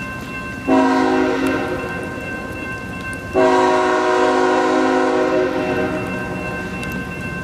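Train air horn sounding two long blasts, the second starting about three and a half seconds in. Under it, a grade-crossing bell rings steadily and rain falls.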